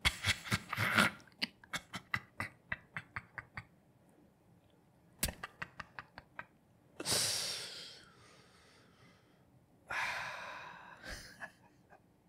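A man laughing hard: a run of quick breathy laugh pulses, about four a second, and a second shorter run about five seconds in. Then come two long wheezing gasps for breath.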